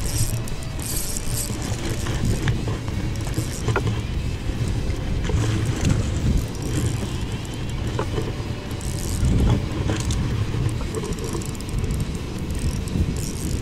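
Wind buffeting the camera's microphone as a steady low rumble, with scattered small clicks and rustles from handling.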